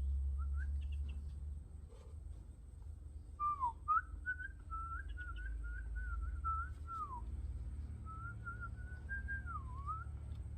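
A person whistling: a short note about half a second in, then a long wavering whistle from about three and a half to seven seconds that drops in pitch at its end, and another from about eight to ten seconds that dips and rises again, over a low rumble.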